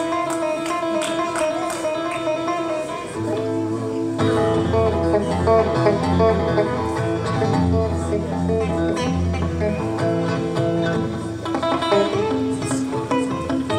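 Live guitar music: a guitar picking a melody, with deep bass notes joining about three seconds in.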